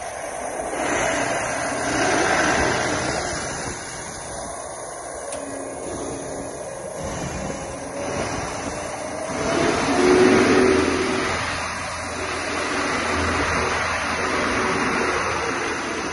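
Ditch Witch RT115 trencher's diesel engine running while its toothed rock wheel turns, the machine noise swelling twice.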